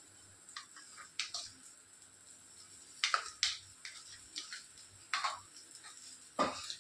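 Light clicks and scrapes of a metal spoon against a small plastic cup and a dosa pan: a handful of short, sharp taps spread out, the loudest about three seconds in and near the end.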